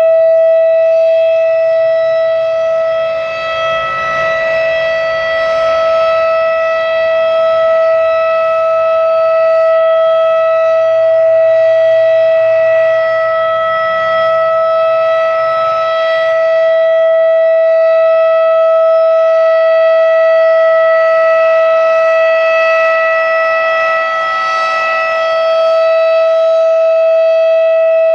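Federal Signal RSH-10 "Thunderbeam" outdoor warning siren sounding its steady alert tone, a single held pitch rich in overtones. Its loudness eases slightly and swells back a few seconds in and again near the end.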